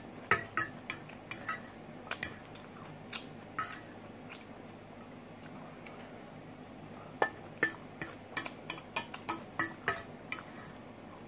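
A metal fork clinking and scraping against a stainless steel mixing bowl while salad is picked up, each clink leaving a short metallic ring. A few clinks come in the first few seconds, then a quicker run of them from about seven seconds in.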